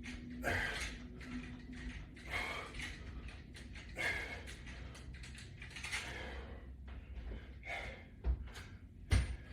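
Resistance band pull-reps: a short swish or breath-like rush about every one and a half to two seconds as the bands are pulled, with a couple of dull thuds near the end.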